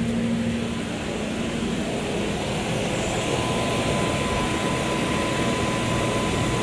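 Toyota Crown's engine running at a raised idle that drifts up and down on its own, with a thin steady whine coming in about halfway. The unstable high idle is a fault the owner ties to a soft brake-booster vacuum hose that collapsed and to a misplaced part in the throttle.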